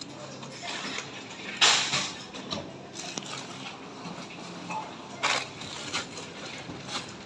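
Steady low background hum with a few short rustling noises, the loudest about two seconds in and another about five seconds in.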